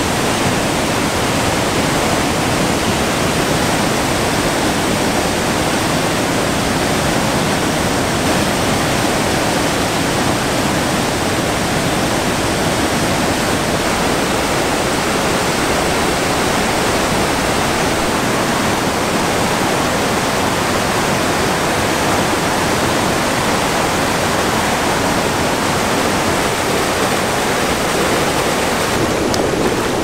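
Steady, unbroken rush of water pouring down a waterfall.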